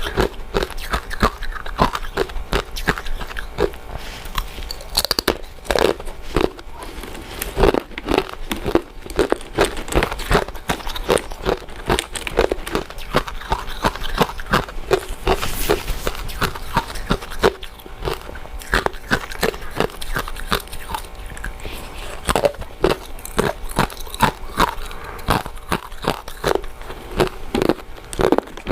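Close-miked eating of glutinous rice desserts (purple rice cakes, sweet potato balls, mochi): a steady, irregular run of short biting and chewing mouth sounds, several a second.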